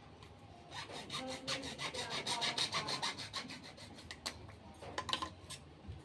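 Quick back-and-forth rasping strokes of a hand tool worked against PVC pipe: a fast run lasting a few seconds, then a few single strokes.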